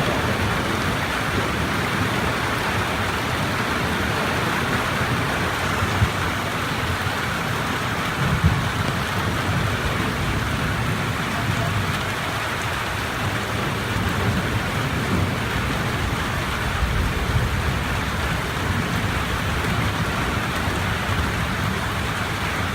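Heavy rain falling steadily. Thunder rumbles low about a third of the way in and again past the middle.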